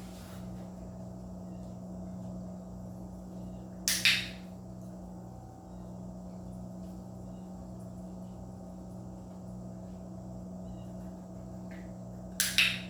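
Dog-training clicker clicked twice, once about four seconds in and again near the end as a quick double click, over a steady low hum.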